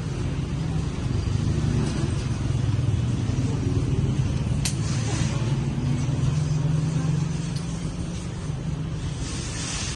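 Street traffic: a steady low rumble of passing motor vehicles, with a sharp click about halfway through and a rising hissing rush near the end.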